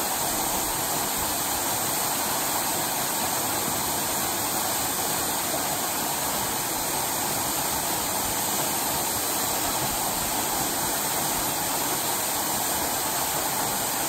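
Waterfall plunging onto rocks and into a pool: a steady, unbroken rush of falling water.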